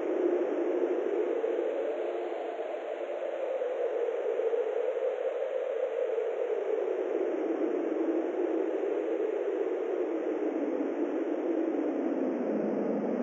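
A steady rushing noise whose low part slowly wavers in pitch.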